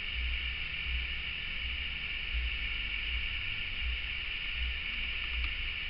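Steady background hiss with an uneven low rumble underneath: room tone and recorder noise, with no distinct sound event.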